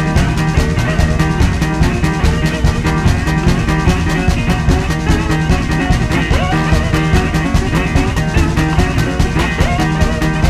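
Rock music with guitar and a fast, steady drum beat.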